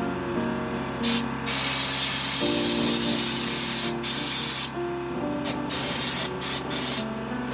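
Compressed-air spray gun spraying Raptor bed liner in bursts as the trigger is pulled and released: a long spray of hiss about a second and a half in, then several short ones.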